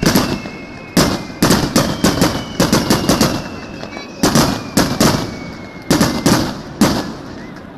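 Aerial firework shells bursting in quick, irregular succession, about sixteen sharp bangs each with a short rumbling tail. The bangs come thickest early on and end about a second before the end.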